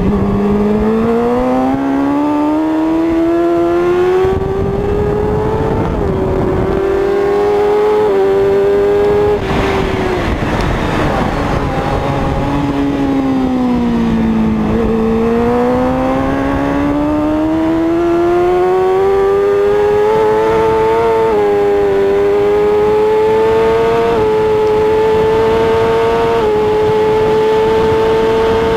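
Racing sport motorcycle's engine heard from an onboard camera, revving hard under acceleration with its pitch climbing and dipping at each upshift. About ten seconds in it drops away as the bike slows for a corner, then climbs again through the gears, with wind rushing over the microphone.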